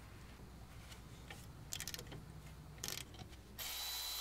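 Hand ratchet clicking in two short quick runs as an E10 socket works the brake-line bracket bolt loose, followed near the end by about a second of steady rushing noise with a faint high whine.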